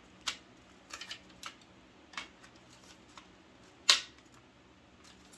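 Scattered plastic clicks and taps as the cover of a Honeywell TC89B smoke alarm is worked into place, with one sharp, louder snap about four seconds in as it seats.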